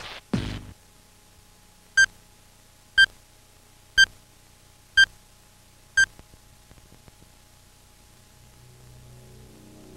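Film-leader countdown beeps: five short, identical high beeps, one each second, marking the numbers as the countdown runs down.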